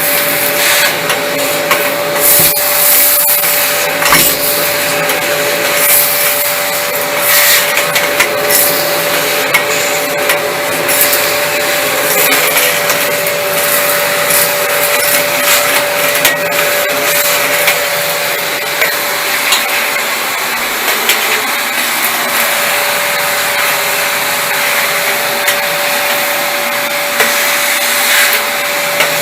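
Vacuum cleaner running steadily with a constant whine, with frequent short knocks and scrapes over the motor noise.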